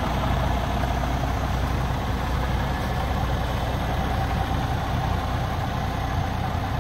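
A Cummins X15 inline-six diesel in a Kenworth W990 idling steadily.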